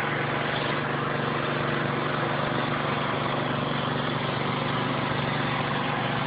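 A small engine running steadily at a constant speed, with an even drone that does not change.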